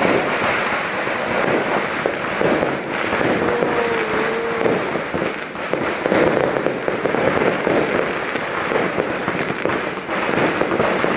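Many aerial fireworks and firecrackers going off at once: a dense, continuous crackling and popping of bursts with no pause.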